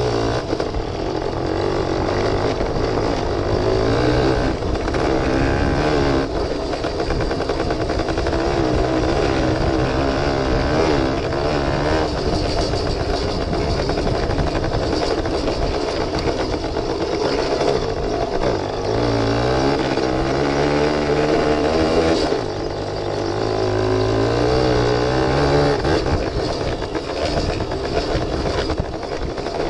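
1973 Suzuki RV75's small two-stroke single-cylinder engine running under load as the bike rides along a dirt track, its pitch rising and falling with the throttle. It climbs in pitch twice in the later part, with a brief drop between as the throttle is eased; the bike is well down on power.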